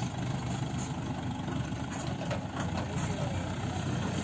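Heavy diesel engine of a crane idling steadily with a low rumble.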